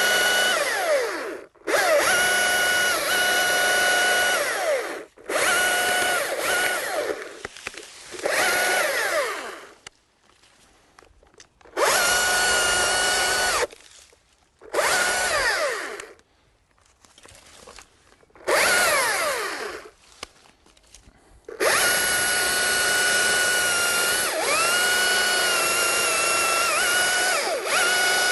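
Chainsaw run at full throttle in repeated bursts, cutting through a large ramicorn branch in a front cut and a back cut. The pitch sweeps down as the throttle is let off between bursts. Near the end comes one long, slow cut to tidy the stub without damaging the stem.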